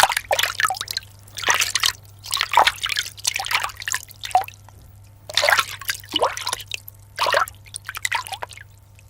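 Water splashing and dripping in irregular scoops and splashes, a foley sound made to match an animal drinking at a river.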